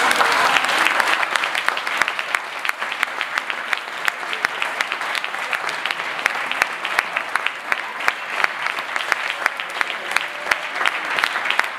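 A large audience applauding, a dense clatter of many hands clapping at once. It is loudest right at the start and carries on steadily.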